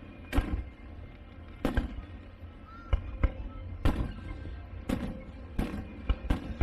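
Fireworks shells bursting in the sky, a sharp boom roughly every second, some in quick pairs, with a low rumble between them.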